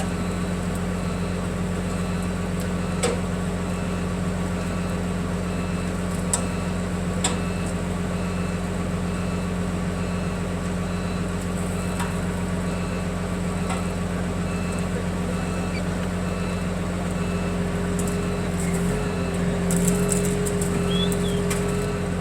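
Heavy equipment's engine running steadily, with a few sharp metal clinks. Near the end a higher whine joins in, along with clinking and crackling, as the machine works at pulling the van apart.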